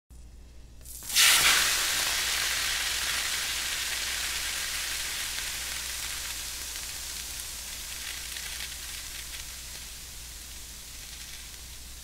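Water flash-boiling into steam with a sizzle: a sudden loud burst about a second in that slowly dies away into a steady hiss.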